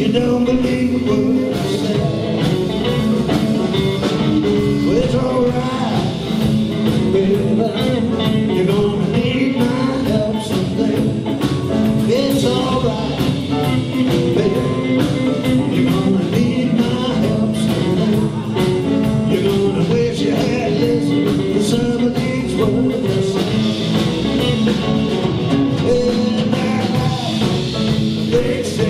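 Live blues band playing a song, with singing over the band.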